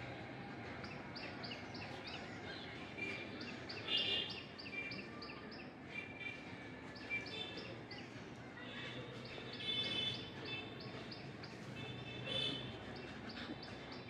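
Birds chirping: runs of short, high calls repeated several times a second, with a few louder calls standing out, over a low steady background hum.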